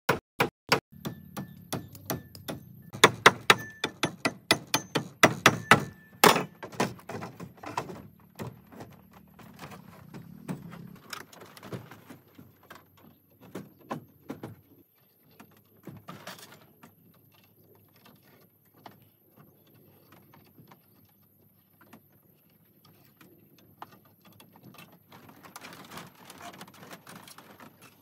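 Hollow wooden knocks and clatter of bamboo and wooden poles being struck and laid on a bamboo raft deck: a rapid run of sharp knocks for the first several seconds, then scattered lighter taps and shuffling.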